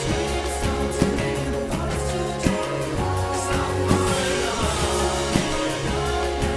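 Indie rock song playing: a full band with a steady beat, bass and guitar, with some singing.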